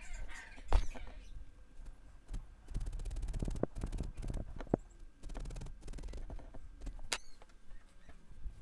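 Hands working loose black wool with a felting needle over a bristle felting mat: irregular soft pokes and taps with rustling fibres, and a quick run of rapid ticks about three seconds in.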